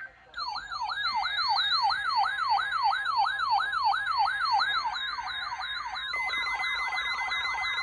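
Weather radio receivers' siren-style alert alarms, a tone sweeping up about three times a second, set off by the NOAA Weather Radio required weekly test. Underneath, the test's SAME data header plays in short buzzing bursts. About six seconds in, a second alarm and a steady tone join in.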